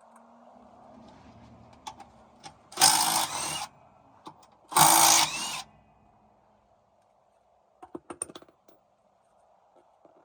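Power tool run in two short bursts, each louder at first and then dropping, while bolts are loosened on a car's rear differential. A quick cluster of metallic clicks comes near the end.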